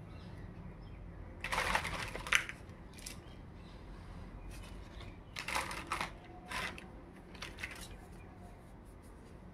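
Crackly plastic rustling and light clicks as toy dolls are handled and set down, in two short bursts: about one and a half seconds in and again about five and a half seconds in.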